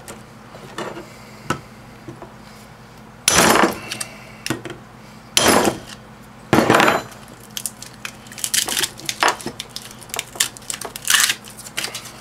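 Hammer blows on a microwave oven transformer held in a bench vise, driving its copper winding out of the steel core: three loud metallic clattering strikes a couple of seconds apart, roughly in the middle. They are followed by lighter clicks and rattles as loose pieces of insulation are picked off the winding.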